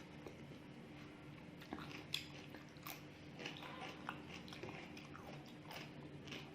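A person chewing and biting food close to the microphone, with scattered wet mouth clicks and small crunches, two sharper clicks standing out about two and three seconds in.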